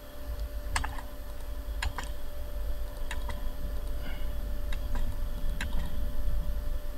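Irregular clicks from a computer mouse and keyboard, roughly one a second, over a steady low hum.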